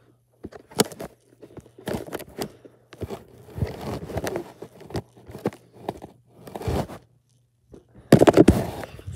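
Thumps and rustling in irregular clusters about a second apart, from a child exercising on and beside a bed close to the phone. The loudest cluster comes near the end.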